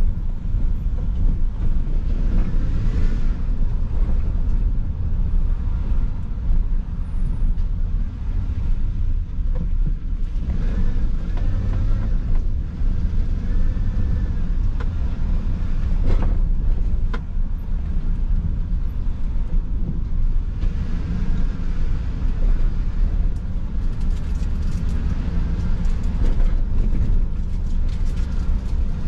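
Steady low rumble of a car driving slowly, engine and tyre noise heard from inside the moving car.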